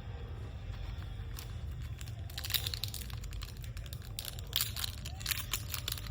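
Crinkling of a trading card pack wrapper being handled and torn open, an irregular crackle that starts about two seconds in and grows louder toward the end, over a steady low hum.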